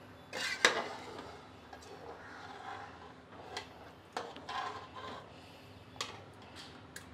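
A few light, sharp clicks and taps of stainless steel kitchenware around a colander of cooked chicken draining over a pot, scattered a second or more apart, over a low steady hum.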